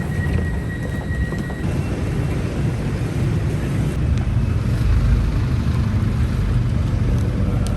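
Royal Enfield Hunter 350's single-cylinder engine running steadily while the motorcycle is ridden, a continuous low rumble.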